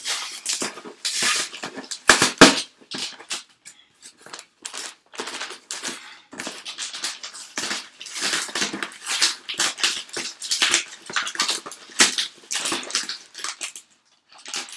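Packing tape being torn and peeled off a cardboard box, with scissors cutting at the tape and the box being handled. It makes a run of irregular rasps and crackles, loudest about two seconds in.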